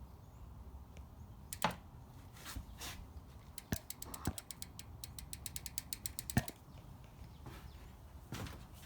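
Fit Bike Co. BMX cassette hub's pawls ratcheting as the rear wheel freewheels. A few scattered clicks come first, then a fast run of about ten clicks a second in the middle that stops suddenly.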